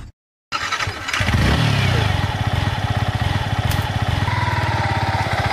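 Motorcycle engine starting about half a second in, then running with a fast, steady firing beat.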